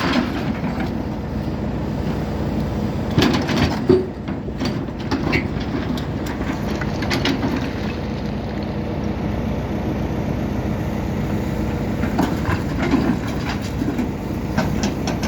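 Heavy construction machine's diesel engine running steadily, with metal clanks and knocks about three seconds in and again near the end.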